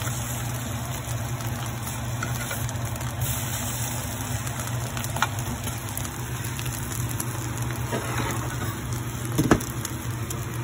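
Steady low mechanical hum, with a few light clicks, the loudest about nine and a half seconds in.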